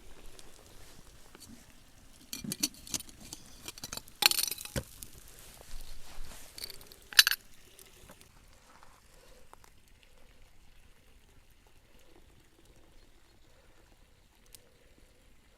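A handful of sharp clinks and knocks. The loudest are a knock about four seconds in and a clink a few seconds later, followed by quiet.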